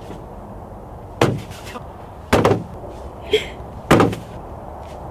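Cornhole bean bags landing with sharp thuds on the cornhole board and the wooden deck, three throws a second or so apart.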